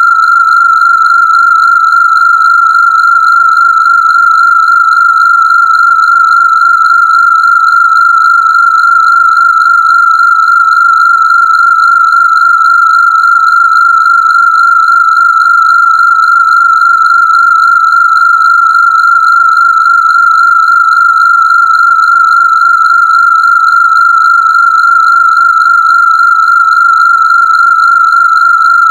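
Rife frequency tone: a single steady, loud, high-pitched electronic tone with a buzzy edge, held without change.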